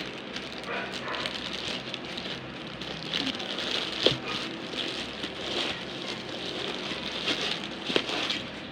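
Packaging of a roller-skate box being opened and handled: continuous crinkling and rustling, with sharp knocks about four seconds in and again near the end.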